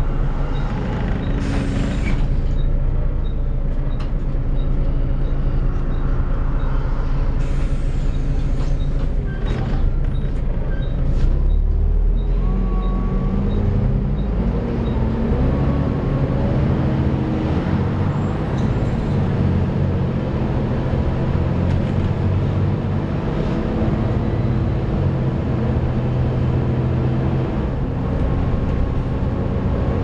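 Volvo B7TL double-decker bus's six-cylinder diesel engine and drivetrain heard from the upper deck while on the move, with body rattles and a short hiss about two seconds in. About halfway through, the engine note rises in steps as the bus pulls away through the gears.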